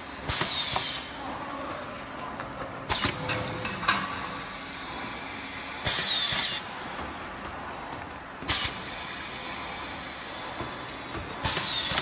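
Perfume bottle crimping machine cycling: three short bursts of air hiss about five and a half seconds apart, each with a falling whistle in it, and sharp clacks in between.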